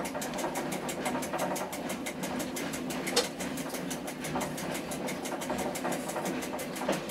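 Train's engine running steadily, heard from the driver's cab, with a fast, even beat and a single sharp click a little over three seconds in.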